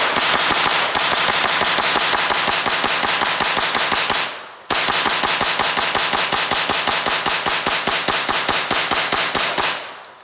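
Chrome Thompson submachine gun in .45 ACP fired semi-automatically from a 50-round drum, the trigger pulled as fast as possible: a rapid, steady string of shots, several a second, with a brief pause about four seconds in, ending just before the close.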